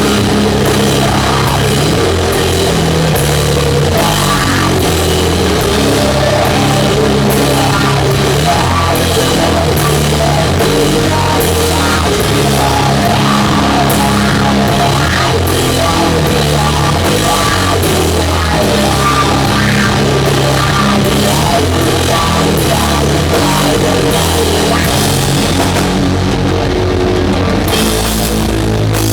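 Doom metal band playing live and loud: electric guitars, bass and drum kit together in a steady heavy groove.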